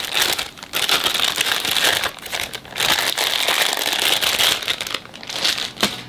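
Clear plastic bag crinkling and rustling as a tape measure is worked out of it by gloved hands, in spells with short breaks, dying down near the end with a light knock.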